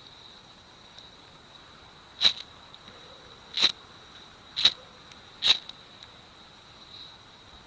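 FireFly ferrocerium fire starter from a Swiss Army knife struck four times in quick, harsh scrapes to throw sparks onto fatwood tinder, the strokes a second or so apart.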